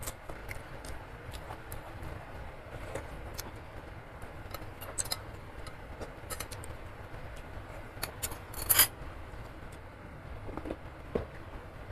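Metal spoon and fork clinking and tapping lightly against a ceramic noodle bowl while eating, in scattered single clicks, with one louder, brief noisy sound about nine seconds in.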